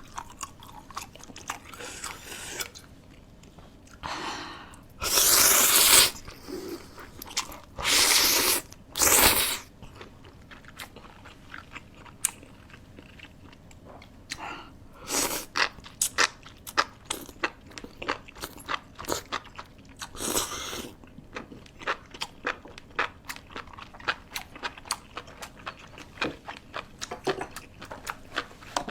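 Close-miked eating: many crisp crunching bites and chewing of crispy fried food, broken by a few loud, hissing slurps, three of them in the first ten seconds and one about twenty seconds in.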